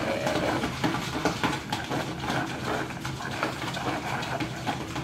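Utensils stirring and scraping in plastic containers of watery slime mixture, making a steady run of irregular light clicks and scrapes.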